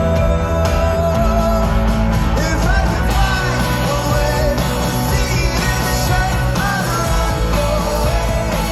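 Rock band playing live with a lead singer, a loud amplified concert mix with steady bass under the vocal line.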